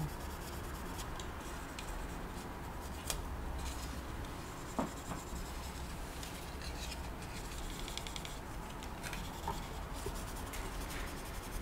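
Quiet, scratchy rubbing of a fine 6000-grit sanding pad over a plastic scale-model car body, coming in short uneven strokes, with a few faint clicks of handled plastic.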